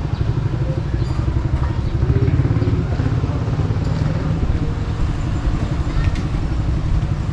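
Street traffic: a motorcycle engine running close by, a steady low rumble with a fast pulse, over faint background voices.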